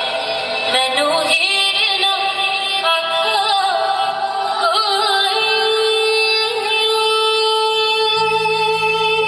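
Music with a high female singing voice, its melody bending and held on long notes. A low steady tone comes in near the end.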